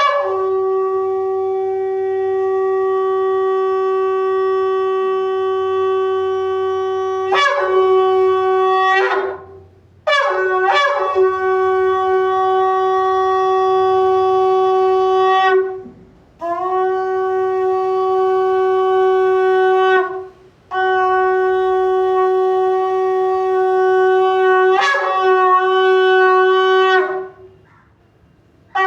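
Shofar blown in a series of long held blasts of several seconds each, on one steady low note with a bright, buzzy overtone series. Between blasts the tone breaks upward into short higher notes or cuts off briefly, four main blasts in all.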